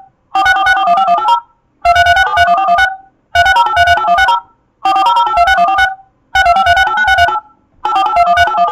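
DTMF telephone keypad tones: fast strings of two-tone beeps, about ten key tones per string. Each string lasts about a second, and a new one starts roughly every one and a half seconds after a short pause.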